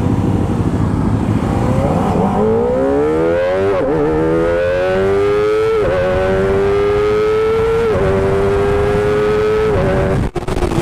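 Kawasaki Ninja ZX-25R's 250 cc inline-four on its stock exhaust accelerating, its revs climbing and dipping briefly at each of four quick upshifts. Wind noise runs beneath it.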